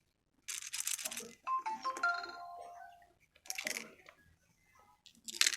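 Slime being squished and worked in short crackling bursts, three times. Between the first two bursts a short electronic melody of steady beeping tones plays.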